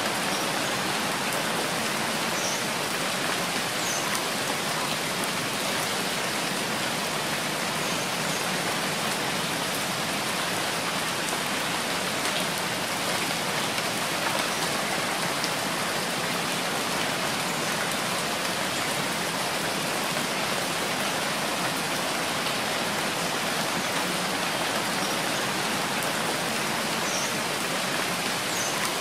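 Steady rain falling, an even hiss of drops that never lets up.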